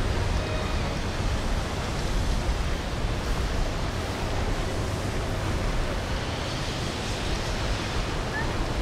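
Steady outdoor rumble and wash on the water: wind buffeting the microphone over the rush of moving water.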